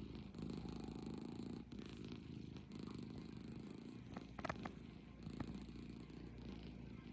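Domestic cat purring steadily while dozing, the purr swelling and dipping with each breath. A few brief clicks about four and a half seconds in.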